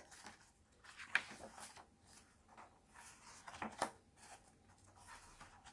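Faint rustling and soft clicks of paper, a picture book's pages being handled and turned.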